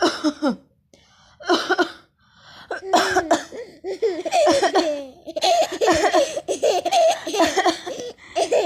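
A woman coughs a couple of times, and a baby laughs in response, a long run of giggles from about three seconds in.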